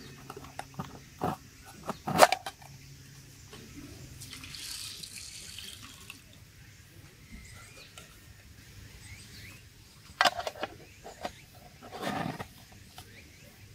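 Hand work on a wooden kuksa cup being carved: scattered knocks and clicks of wood and tools being handled, the loudest about two seconds in and a cluster about ten seconds in, with a longer scraping stroke around five seconds and a brief rustling scrape near twelve seconds.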